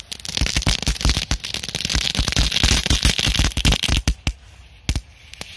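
Korsar-4 firecracker going off as a dense run of rapid crackles over a hiss for about four seconds, throwing sparks, then a few separate pops near the end.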